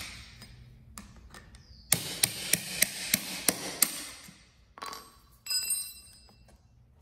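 Hammer blows on a 5/16 tool used as a punch, driving a pin through the car turntable's wheel mount: about seven quick metallic strikes, roughly three a second, with a ringing after each. A short metallic clatter follows near the end.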